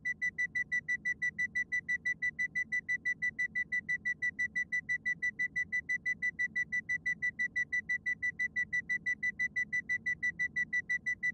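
Spacecraft hibernation life-support monitor alarm beeping fast and evenly, about six high beeps a second at one steady pitch. It signals that the sleeping crew's life functions are failing.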